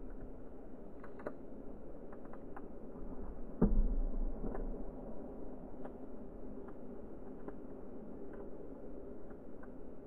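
Birds pecking and handling sunflower seeds on a wooden platform feeder: scattered small clicks and ticks, with one louder knock about three and a half seconds in, over a steady low background hiss.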